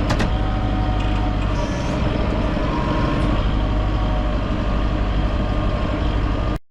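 Tractor engine running steadily at a constant speed, then cutting out abruptly just before the end.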